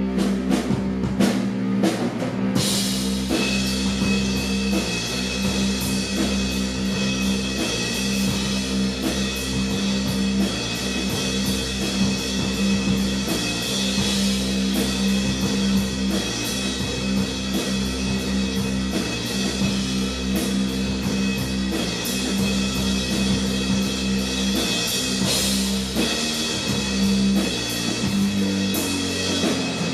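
Slow, heavy doom/stoner rock: low-tuned guitars over a full drum kit. The drums come in right at the start, and cymbals wash over the band from about two and a half seconds in.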